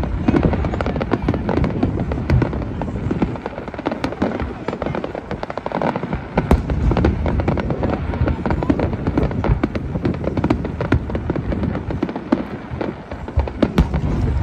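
Aerial fireworks shells bursting one after another: a dense run of sharp bangs and crackles over a continuous low rumble.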